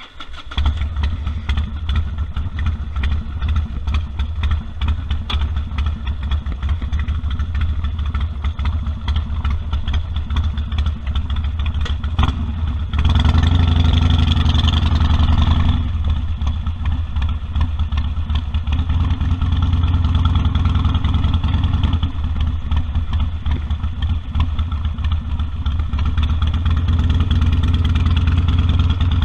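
Harley-Davidson Sportster 1200's air-cooled V-twin engine. It comes in suddenly at the start, then runs at a steady low pulse, with a louder burst of revs lasting about three seconds midway through.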